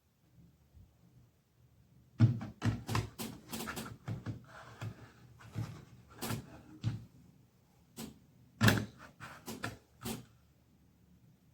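A string of irregular knocks and clatters of hard objects being handled and set down, starting about two seconds in and stopping shortly before the end. The first knock and one near the end are the loudest.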